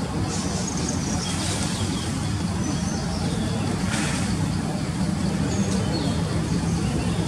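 Steady low hum of motor traffic running without a break, with faint high chirps scattered over it and a brief crackle about four seconds in.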